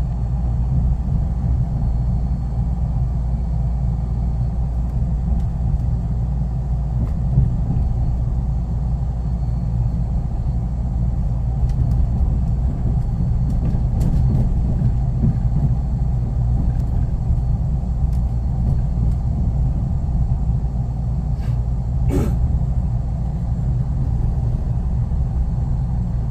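Subway trains passing each other: a steady low rumble from the rolling trains, with a few light clicks and one sharper click about 22 seconds in.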